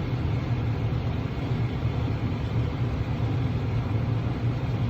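Steady diesel engine drone of a working harvest vehicle, heard from inside its cab: a constant low hum with an even machinery hiss and no change in pitch.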